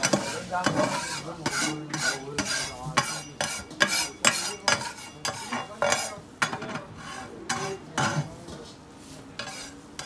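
Metal spatula scraping and scratching across a flat round oiled griddle in quick, irregular strokes, pushing leftover bits off the surface, with light sizzling underneath. The strokes ease off near the end.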